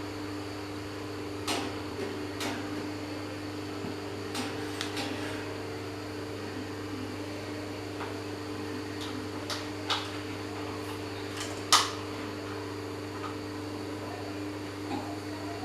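Electric standing fan running with a steady motor hum, with a few light clicks over it.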